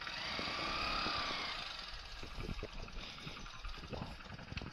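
Small commuter motorcycle engine running as the bike pulls away and rides slowly, heard from the rider's seat with road rumble and wind.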